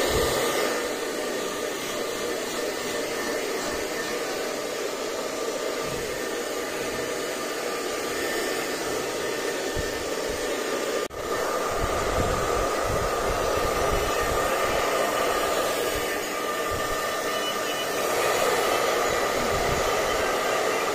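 Handheld electric hair dryer running steadily with a whooshing blow of air and a faint whine. It breaks off for a moment about halfway through.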